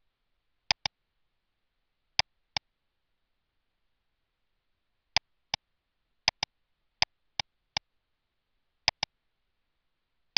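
Computer mouse button clicks, about fourteen short sharp ones, many in quick pairs like double-clicks, with dead silence between them.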